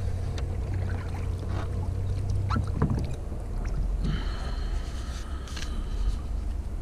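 A long pole knocking and splashing in the water beside a small inflatable boat, over a steady low hum that stops about three seconds in.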